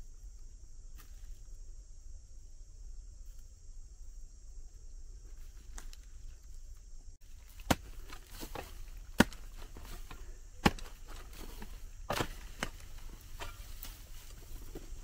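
Sharp chopping strikes begin about halfway in, roughly one every second and a half, then come less evenly. Before them a steady high-pitched drone runs and stops abruptly.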